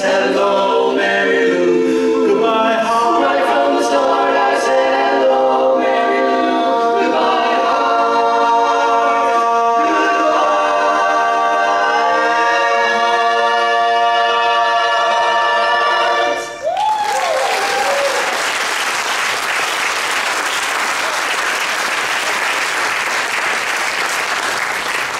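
Male barbershop quartet singing a cappella in four-part close harmony, ending on a long held chord that cuts off about 16 seconds in. Audience applause follows for the rest of the time.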